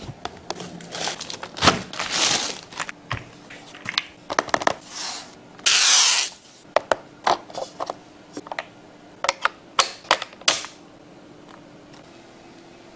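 Mechanical keyboard being unboxed and handled: packaging rustling and scraping, with many sharp clicks and taps; a run of separate clicks comes in the second half, then the last couple of seconds go quiet.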